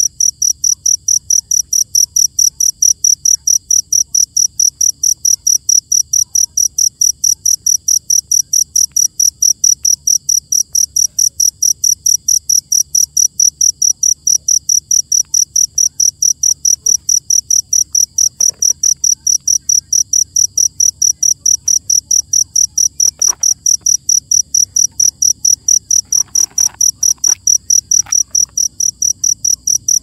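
A cricket chirping loudly and steadily, even high-pitched chirps at about four a second.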